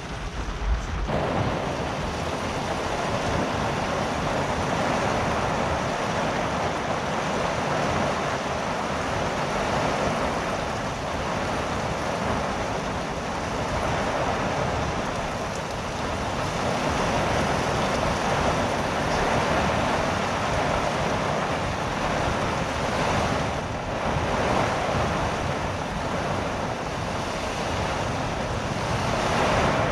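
Storm wind and rain, a steady loud rush that swells and eases in gusts every few seconds.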